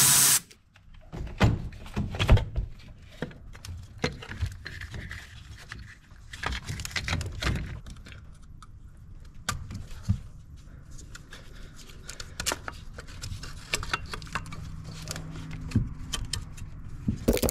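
Hands working a plastic engine wiring harness connector loose in a diesel engine bay: scattered clicks, knocks and light rattles of plastic and metal being handled.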